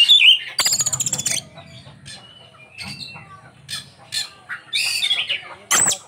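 Caged Oriental magpie-robin (kacer) singing a varied song rich in learned phrases: a warbled phrase at the start, a fast dry rattle about a second in, then scattered short notes and whistles, with a loud sharp note near the end.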